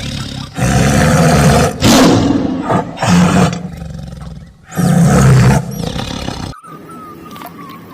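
Tiger roaring: a run of four or five loud roars that stops about six and a half seconds in.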